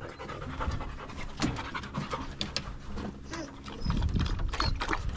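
Bird dog panting close by, with its breathing louder from about four seconds in.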